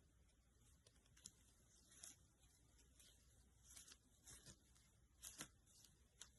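Faint, scattered rustles and light scratching sounds from a cat at play, a handful of short scrapes over a few seconds, the loudest pair near the end, against near silence.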